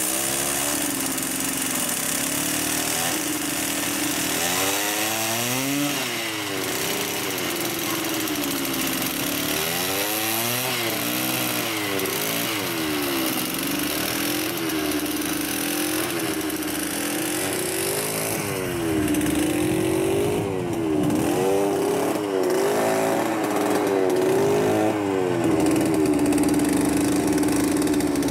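Small engine of a lure-coursing machine running continuously, its speed rising and falling again and again as the lure is pulled ahead of the running hounds.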